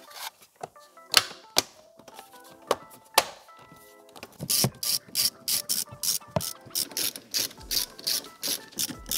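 Plastic seat trim knocking and clicking as it is pressed into place, then from about four and a half seconds a socket ratchet wrench clicking in a fast, even run of about four strokes a second, tightening a seat mounting bolt.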